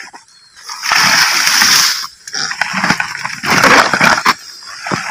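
Water splashing and wet grass swishing as a plastic eel trap is pulled from the waterlogged grass, in two long noisy spells.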